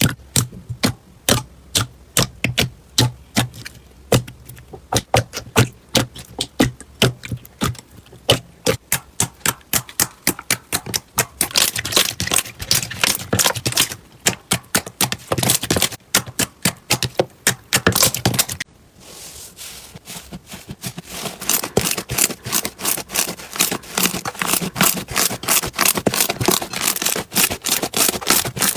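Slime being squeezed and pressed by hand, giving off quick runs of sharp clicks and pops that thicken into a dense crackle. It breaks off briefly near the middle, then starts again with a steady run of crackling.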